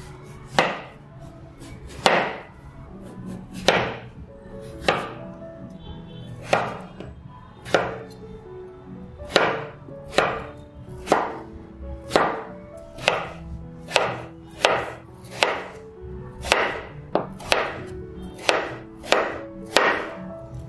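Chef's knife chopping through peeled raw potato and striking a wooden cutting board: sharp knocks, slow and spaced at first, then about two a second in the second half. Soft background music plays underneath.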